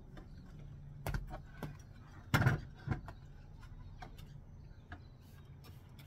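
A metal step ladder knocking and clicking under a person's feet as she steps down a rung and squats: a few sharp knocks, the loudest a short clatter about two and a half seconds in, with lighter clicks after.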